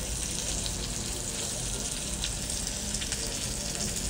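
Salmon fillet frying in hot oil in a pan: a steady sizzle with a few small crackles.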